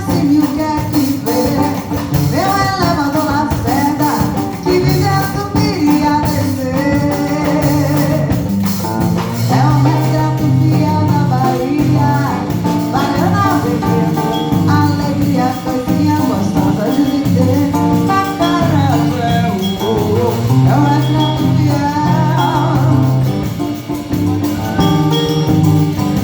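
A samba song performed live: a solo voice sings the melody over band accompaniment with a steady bass line and percussion.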